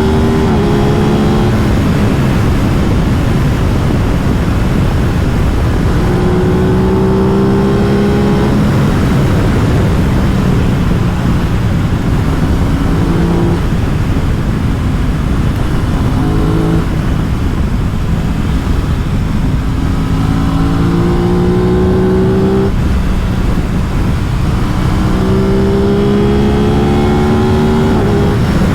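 Aprilia RS 660's 659 cc parallel-twin engine pulling hard under acceleration, its pitch climbing and then dropping at each upshift, several times over, with a steady rush of wind and road noise.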